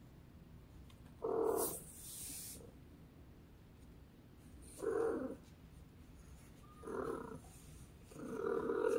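A domestic cat making four short, purr-like calls a second or two apart, each about half a second long; the last is longer. A brief high rustle follows the first call.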